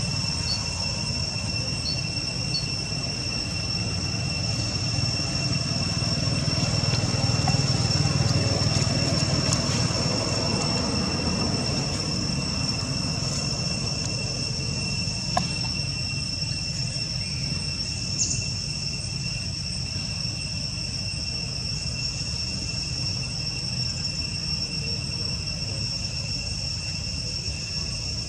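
Insects droning steadily in two high, even tones, over a low rumble, with a couple of faint clicks.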